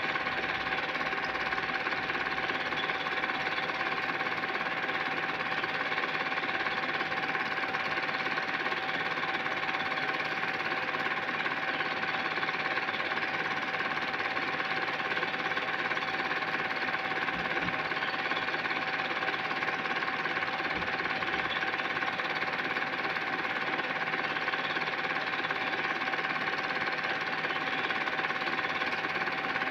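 Home-movie film projector running steadily: an even mechanical whir with a constant tone through it.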